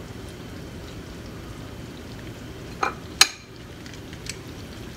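Steady hiss of water simmering in a wok, with metal tongs clacking twice against the wok about three seconds in as the Chinese broccoli is lifted.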